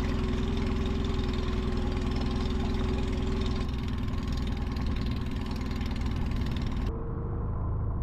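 Small outboard motor on a skiff running steadily. About seven seconds in, the sound changes abruptly to a duller hum.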